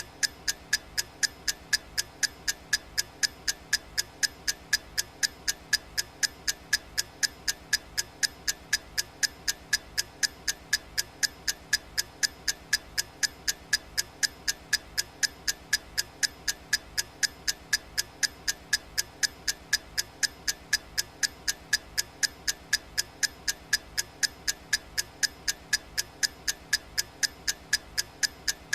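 Clock-style ticking sound effect of a digital countdown timer: a steady row of sharp, evenly spaced ticks, a little over two a second, each with a short bright ring.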